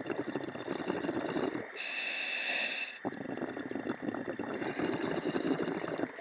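A diver breathing in a surface-supplied hardhat diving helmet, heard over the helmet's comms mic. Exhaled bubbles crackle and rumble, a steady hiss of air comes in on the breath in from about two to three seconds, then the bubbling exhale comes again.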